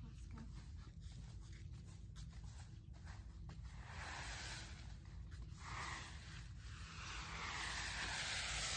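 A rake scraping over paving stones and rustling through cut hedge leaves as the clippings are gathered into a pile. The sound comes in uneven swells, fullest about halfway through and near the end.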